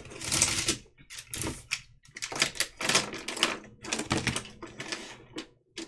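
Plastic pens and markers being scooped up and set down in a bundle on a table, clicking and clattering against each other in a quick run of small knocks.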